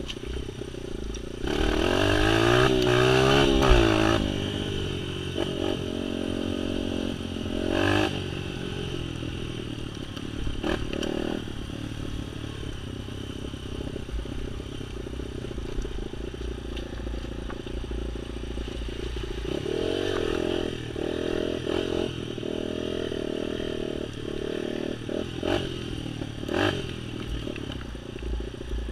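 Motorcycle engine running under way, revving up hard about two seconds in and again around twenty seconds, with shorter blips of throttle in between. Short knocks and rattles come from the machine over rough ground.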